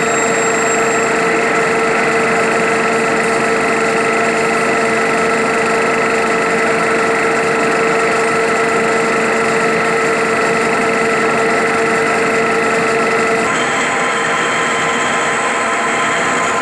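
Metal-turning lathe running with its chuck spinning: a steady mechanical hum with several held whining tones. About three-quarters of the way through, the sound shifts to a slightly different steady hum.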